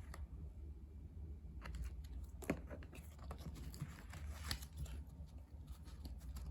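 Photo cards being handled: light scattered clicks, taps and rustles, the sharpest about two and a half and four and a half seconds in, over a low steady hum.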